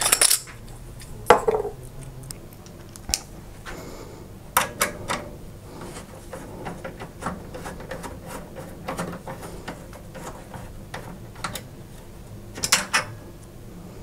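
Hands working on a graphics card and its rear bracket inside an open metal PC case: scattered small metallic clicks and clatters, with a louder cluster of clicks near the end.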